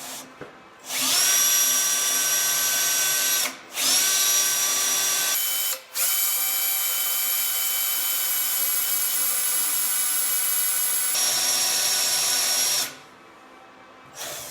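Electric hand drill whining as a small bit bores a pilot hole into the centre of a broken bolt, lubricated with oil. The motor runs in three spells, stopping briefly twice, and stops near the end.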